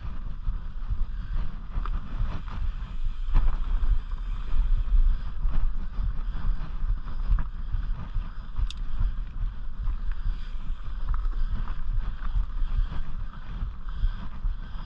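Mountain bike rolling along a rocky dirt trail: tyres crunching over dirt and stones, with scattered clicks and rattles from the bike over bumps. Steady low wind rumble on the microphone throughout, and one brief sharp high tick about nine seconds in.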